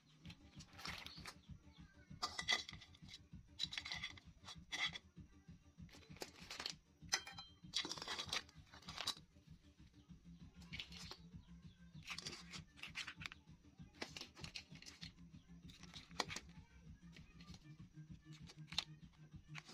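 Raw swimming crabs being set down one after another into an empty metal wok, their shells knocking and scraping against the metal and each other in a string of short, irregular clatters, over a low steady hum.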